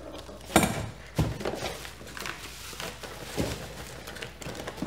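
Packaging being handled: plastic bags and bubble wrap rustling and crinkling, with three sharp knocks, about half a second, a second and three and a half seconds in.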